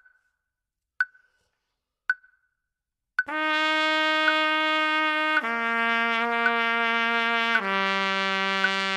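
Metronome clicking about once a second; a little over three seconds in, a trumpet comes in with long, steady held notes, each lower than the last and each lasting two clicks, as a long-tone warm-up exercise.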